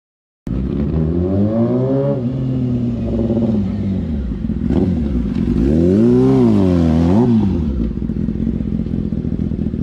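Sport motorcycle engine revving as the bike rides, its pitch climbing and falling twice.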